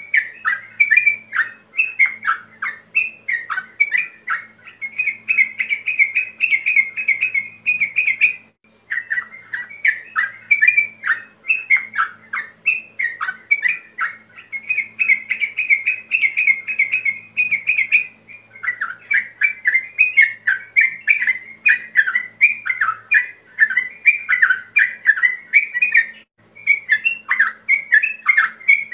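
Male yellow-vented bulbul (trucukan) singing a rapid, near-unbroken run of bubbly chirping notes, pausing briefly about 8 s, 18 s and 26 s in. It is a male's challenge call to rivals, used as a lure to set other trucukan singing.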